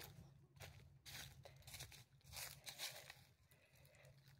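Faint footsteps crunching through dry leaf litter: a few soft, uneven steps that fade toward the end.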